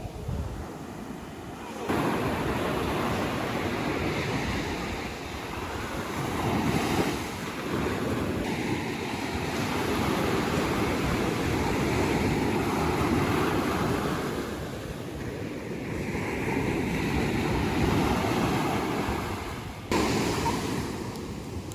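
Ocean waves surging on a shore, swelling and easing every few seconds, with wind buffeting the microphone.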